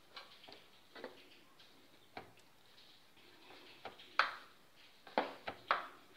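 A handful of light taps and clicks from hands rolling a thin sheet of dough into a log on a plastic chopping board, with a few close together near the end.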